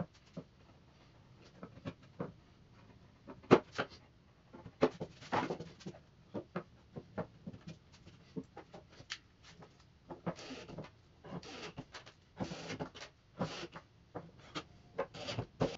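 Scattered clicks and short scrapes of hand work on a plywood board: a wood chisel scraping off dried hot glue, then metal linear bearing blocks being handled and set on the wood, with the scrapes coming closer together toward the end.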